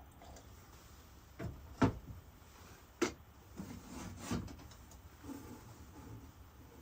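A few sharp knocks and clunks of objects being handled and set down, the loudest about two seconds and three seconds in, with softer rustling between them.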